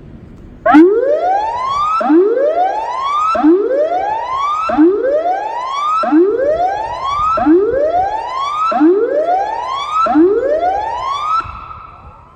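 A cluster of electronic tsunami warning sirens sounds a loud whoop tone for a test. There are eight rising sweeps, about one every 1.3 seconds, and the last is held at its top pitch before fading out.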